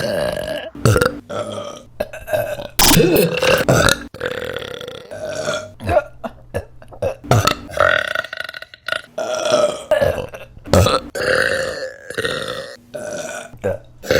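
A rapid run of women's burps, one after another, some short and some long and drawn out, with abrupt switches between them.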